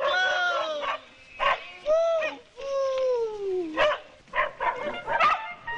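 A man's high, wordless hollering: several drawn-out calls that swell and then fall in pitch, the longest sliding down for more than a second, with short sharp shouts between them.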